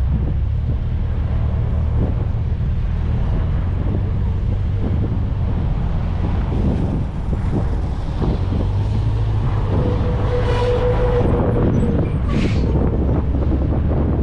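1994 VW Gol's 1.6 L CHT engine and tyres running at highway speed, heard from outside the car as a steady low rumble with wind on the microphone. About ten seconds in, a steady tone and two short hissing sounds rise over the rumble.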